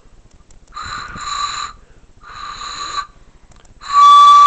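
Breath blown across the mouth of an empty brass rifle cartridge case, like a pan flute. Two short, airy blows with a faint whistle come first, then near the end a loud, clear steady whistle lasting about a second.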